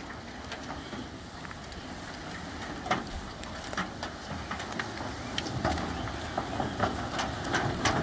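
A load of leafy tree branches sliding off a tipped dump trailer's bed onto a brush pile: rustling with many sharp twig cracks and snaps that grow louder and more frequent toward the end, over a steady low rumble.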